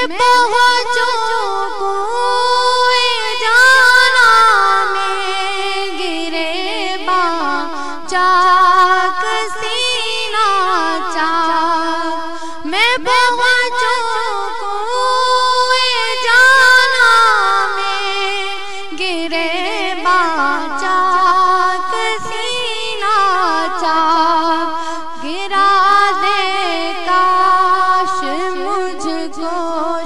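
Wordless vocal interlude of an Urdu naat: a voice or voices carry the melody in long, ornamented notes that wind up and down, with no drums.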